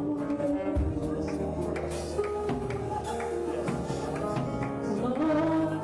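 Background music with sustained chords changing every second or so over a light, steady tapping beat.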